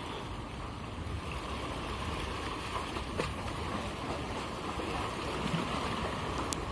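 Steady wash of sea waves against concrete breakwater blocks, a constant rushing noise with no pitched sound in it.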